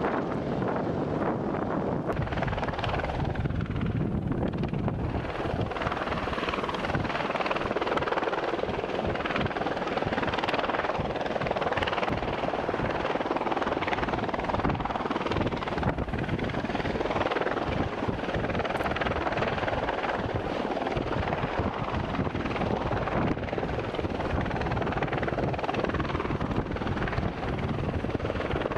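Helicopter in flight: steady rotor and turbine noise with a fast blade chop.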